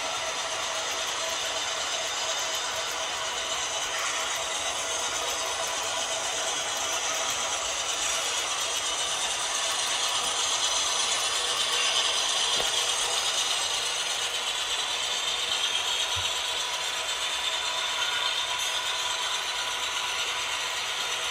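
Model train running: the steady mechanical whir and clatter of a model diesel locomotive's geared drive and a string of coal hoppers rolling over the track.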